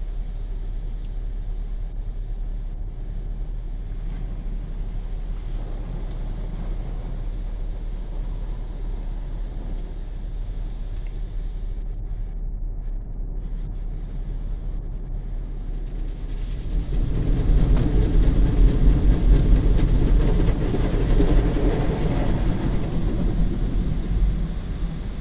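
Automatic car wash heard from inside the car: a steady low rumble of the wash machinery while foam coats the windshield. About two-thirds of the way through, a much louder rushing of water and wash equipment starts hitting the glass and body.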